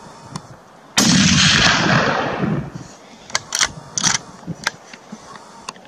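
A single gunshot about a second in, its report rolling away over a second or two. Several short sharp snaps follow.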